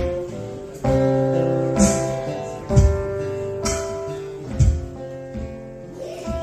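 A live band plays a slow instrumental intro: guitar chords over held notes, with a new chord struck roughly once a second.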